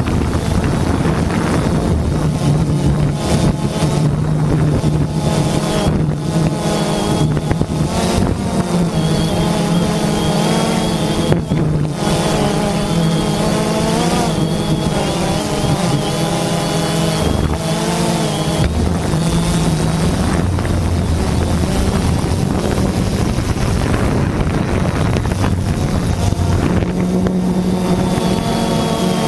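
Multirotor drone's electric motors and propellers heard from its onboard camera: a steady buzzing whine that rises and falls in pitch as the drone manoeuvres, with wind buffeting the microphone.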